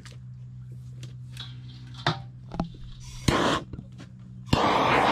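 Handheld gas torch firing at charcoal briquettes to light them: a short hiss a little past three seconds in, then a loud steady hiss of the flame starting about a second before the end.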